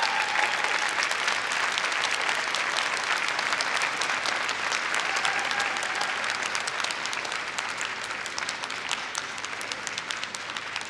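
Large crowd applauding steadily, a dense patter of many hands clapping that eases off somewhat toward the end.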